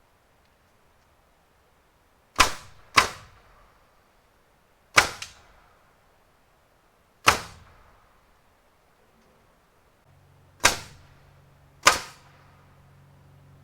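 Pneumatic nail gun firing six single shots at uneven intervals, each a sharp crack with a short ringing tail. A low steady hum starts about ten seconds in.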